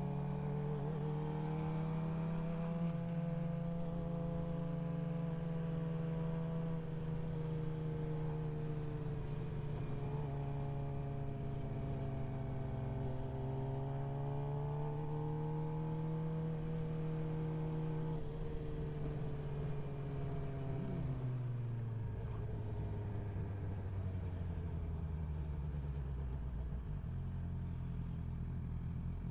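Suzuki GSX-R sportbike's inline-four engine running at a steady cruise, its pitch gently rising and falling. About twenty seconds in the note drops away as the bike slows, settling to a lower steady running note.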